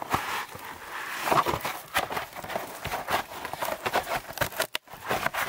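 Close crunching and crackling in dry leaf litter and twigs, an irregular run of snaps and rustles, with a brief gap about three-quarters of the way through.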